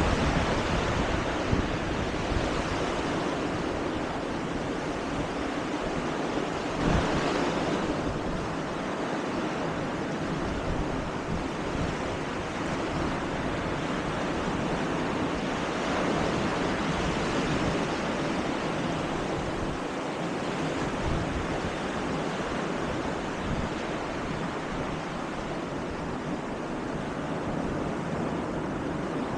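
North Atlantic surf washing steadily onto the beach, with one wave breaking louder about seven seconds in. Wind rumbles on the microphone underneath.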